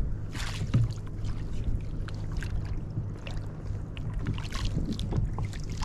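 Water splashing and lapping against a kayak hull, with a splash shortly after the start, scattered small clicks and a steady low hum underneath.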